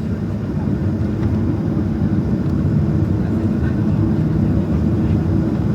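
Steady low rumble of a Boeing 737-900's jet engines heard from inside the passenger cabin, growing slightly louder.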